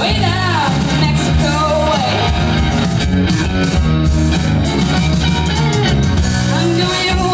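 Rock band playing loudly: electric guitar, bass and drums, with singing over them.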